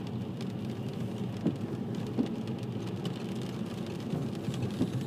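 Rain falling on a car's roof and windscreen, heard from inside the moving car over steady low road and engine noise, with a few sharp taps of single drops.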